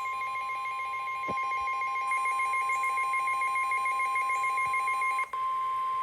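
NOAA Weather Radio warning alarm tone, a steady single pitch of about 1050 Hz, received on a WR-300 weather radio; it signals that a warning is about to be read. A fast warbling two-pitch beep pattern rides over it until about five seconds in, when it stops after a brief dropout and the plain tone carries on.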